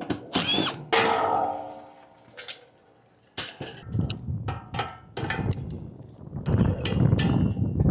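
Sheet metal clanging and ringing about half a second in, then a cordless drill/driver running in short bursts, the longest near the end, as screws are worked on an AC condenser unit to change its fan motor and capacitor.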